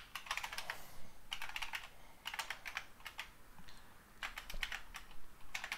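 Typing on a computer keyboard in short runs of key clicks with brief pauses between them.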